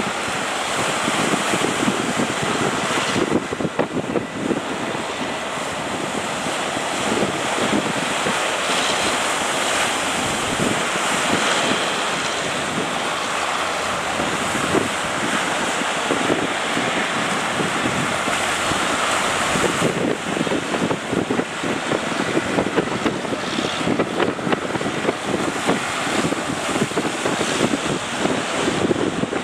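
Surf breaking at a river mouth with strong wind buffeting the microphone, a loud, steady rush with gusty rumble.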